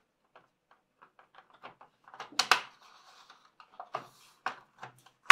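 Plastic top panel of a Samsung NP-R519 laptop being fitted onto the chassis and pressed down: a series of light plastic clicks and knocks as its clips snap into place. The loudest clatter comes about two and a half seconds in.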